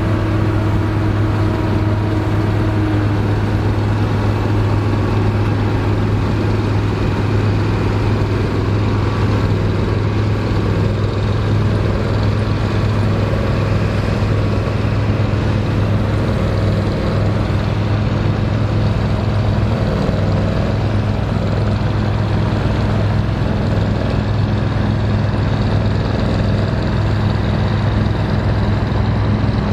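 Vintage Dronningborg D2600 combine harvester running steadily while harvesting barley: a constant low engine drone with the noise of the working machinery over it.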